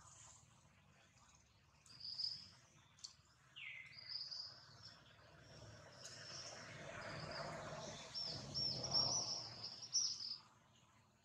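Birds chirping, with short high calls, a falling whistle about three and a half seconds in, and a quick run of repeated chirps near the end, over faint outdoor background noise.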